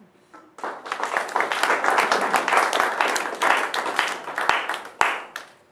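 Audience applauding. A dense clatter of many hands clapping starts about half a second in and dies away near the end.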